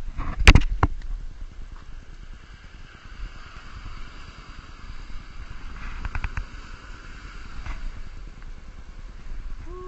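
Low rumble on the microphone with a few sharp knocks, the loudest about half a second in and a small cluster around six seconds, while a soft hiss swells and fades in the middle seconds.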